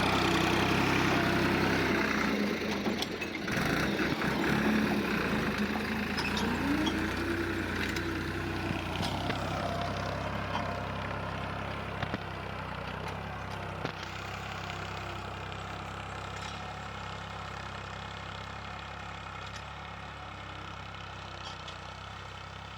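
Tractor engine running steadily while ploughing, its drone gradually fading as the tractor moves away.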